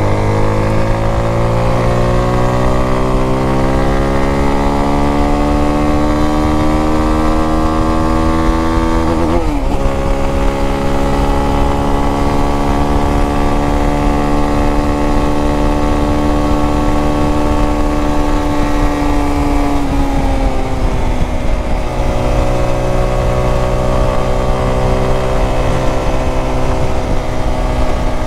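Zontes T350X motorcycle's single-cylinder engine pulling hard at high speed, its pitch rising. About ten seconds in the pitch dips sharply at an upshift, then climbs slowly and holds. About twenty seconds in it drops again and settles at a lower, steady pitch.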